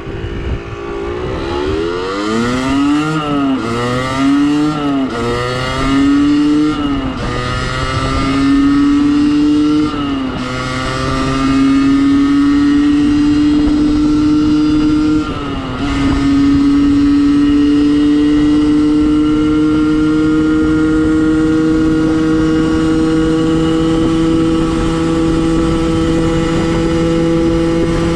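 Beta RR50 Track's 50cc two-stroke engine, its rev limiter disconnected, accelerating hard: the pitch climbs and drops with each of several quick upshifts in the first fifteen seconds, then, after a last shift, holds at high revs and slowly climbs in top gear.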